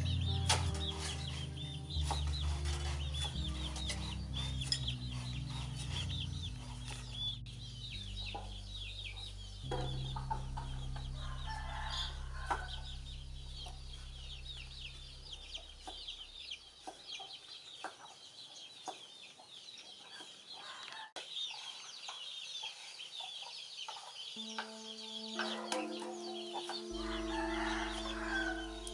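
Chickens clucking and chirping throughout, with now and then the knock of a steel cleaver chopping pickled mustard greens on a wooden chopping block. Low background music plays under it, fading out about halfway and returning near the end.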